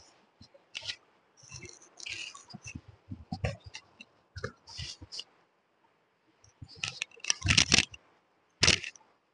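Royal Enfield textile riding jacket rustling and crackling in irregular bursts as it is pulled on over the arms and shrugged onto the shoulders, rubbing close to a clip-on microphone. The loudest rustles come near the end as the jacket is settled into place.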